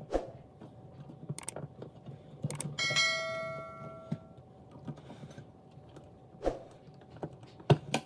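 A single bell-like chime about three seconds in, ringing and fading out over about a second and a half: the sound effect of an on-screen subscribe-button animation. Around it, scattered sharp clicks and snips of wire strippers working on electrical wires.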